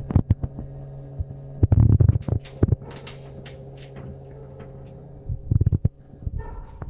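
Steady low electrical hum from a powered box die-cutting machine and its open control cabinet, with scattered clicks and knocks and heavier thumps about two seconds in and again near the end. The hum stops about five seconds in.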